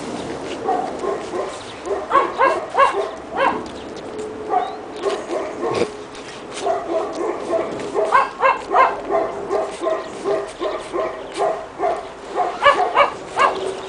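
Pekingese puppies yipping and barking in quick runs of short, high-pitched calls while they play-wrestle, with scattered single yips in between.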